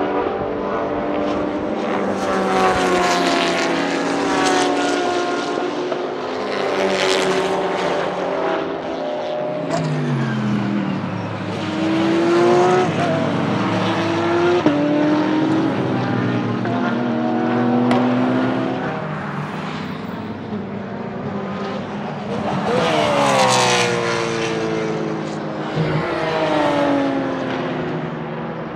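Porsche 991.2 GT3 R race cars' naturally aspirated 4.0-litre flat-six engines at high revs on track. The pitch climbs on acceleration and through upshifts, then drops on lift-off and downshifts for the corners, over several passes.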